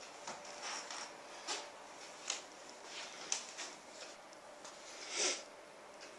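Handling noise from a handheld camera being moved around: scattered light clicks and rustles, with a louder brief swish about five seconds in.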